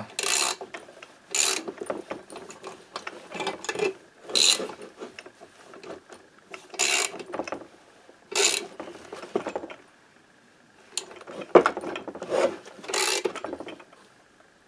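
Ratchet wrench clicking in short bursts about every one to two seconds as cylinder studs are screwed into a Peugeot AM6 moped engine crankcase.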